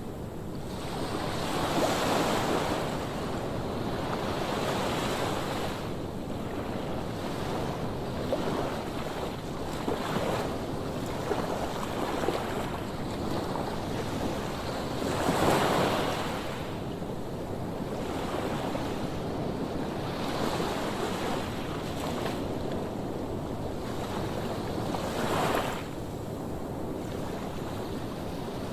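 Rough sea surf breaking on a sandy beach: a continuous wash of water with louder waves crashing about two seconds in, about halfway through and near the end, with wind buffeting the microphone.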